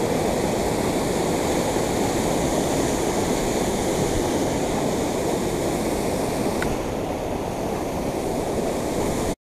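Fast-running water rushing over a concrete spillway, a steady loud rush that cuts off suddenly near the end.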